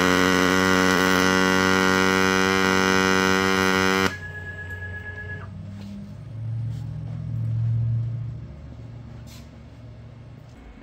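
DIY CNC MIG welder laying a bead with its arc lit: a loud, steady electrical hum that cuts off suddenly about four seconds in as the weld ends. A faint whine lingers about a second more, then a low rumble swells and fades.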